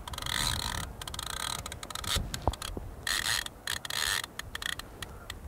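Piscario titanium centrepin reel clicking in short rapid bursts as it turns while a hooked carp is played on the float rod.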